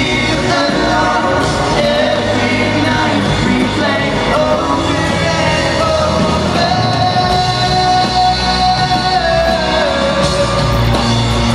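Live pop-rock band playing with a lead vocal singing over it, amplified through the PA in a large arena and recorded from the audience.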